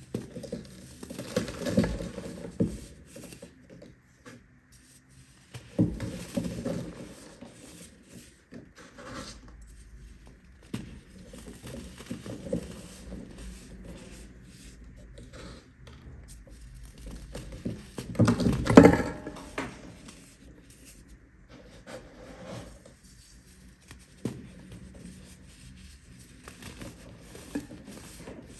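Hands working a large pile of baking soda powder: soft crunching, squeaking and scraping in irregular bursts, loudest in a long squeeze about two-thirds of the way through.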